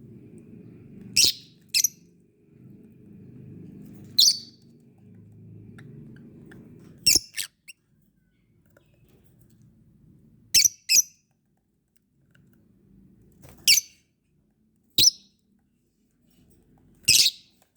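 Fischer's lovebird giving about ten short, shrill chirps, singly or in quick pairs, a few seconds apart.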